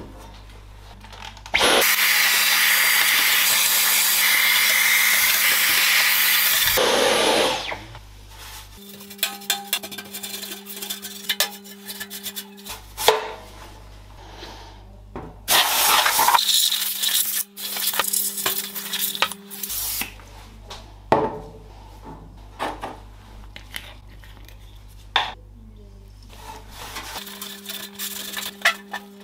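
A cloth rubbing and scrubbing on the bare sheet-steel inside of a Compaq Presario SR1000 computer case, in short uneven strokes. Two long bursts of loud rushing noise come in, one about two seconds in lasting some six seconds and another past the middle lasting about four seconds.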